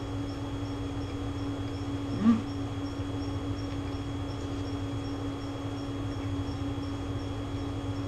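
Steady room hum with a low rumble underneath, and a faint high ticking repeating about three times a second. One short, louder sound with a brief rise in pitch comes about two seconds in.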